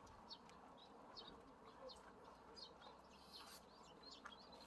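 Near silence with faint bird chirping: short high chirps repeating several times a second over a low background hum.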